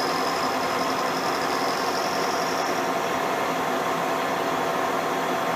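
Schaublin SV52 milling machine running steadily, a hum of motor and gearing with a high whine that rises slightly and fades about three seconds in.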